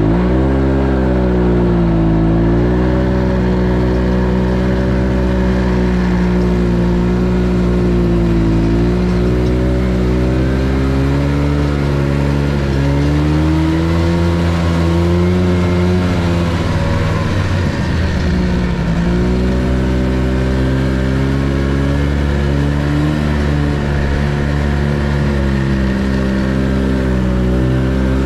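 Small vehicle engine running steadily under way. Its pitch drops for several seconds about halfway through, then picks up again.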